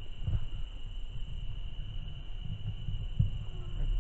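Steady high-pitched chorus of night insects, with low thumps and rustle from the handheld camera and footsteps in the grass; the loudest knocks come just after the start and about three seconds in.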